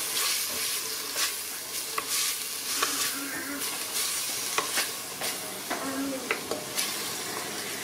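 Pieces of meat with chopped herbs and onion frying in oil in a stainless steel pressure cooker, sizzling steadily as a wooden spoon stirs them, with scattered taps and scrapes of the spoon against the pot.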